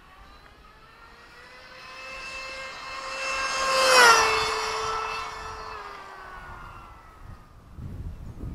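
Electric RC buggy with a 2200kv brushless motor on a 30-tooth pinion making a high-speed pass: the whine of motor and gears grows louder, drops sharply in pitch as it passes about four seconds in, then fades away.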